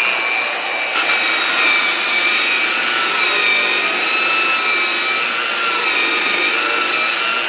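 Tacklife PPGJ01A variable-speed polisher running at a raised speed with a Velcro-backed sandpaper disc, sanding a bevel onto a wooden board's edge. A steady motor whine sits under a scratchy sanding hiss that starts abruptly about a second in, as the disc bites into the wood.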